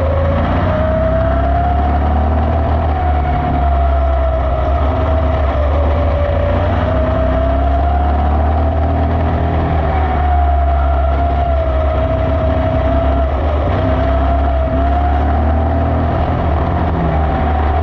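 Junior Slingshot dirt car's engine running hard on track, its pitch rising and easing gently every few seconds as the revs change through the laps, over a heavy low rumble.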